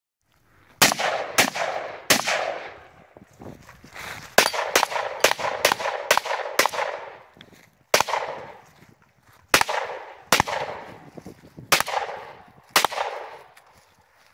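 Over a dozen loud single gunshots, spaced roughly a second apart, each trailing off in a rolling echo. The first shots come from an AR-style rifle; after a short pause about halfway through, the shots that follow come from a pistol.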